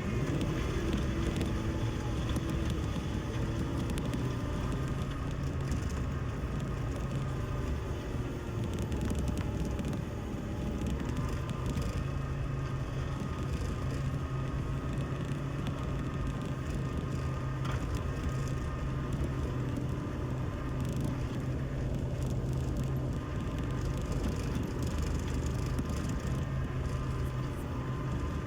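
Compact loader's diesel engine running steadily under load while pushing a grading blade through wet clay, its low hum growing a little stronger about a third of the way in.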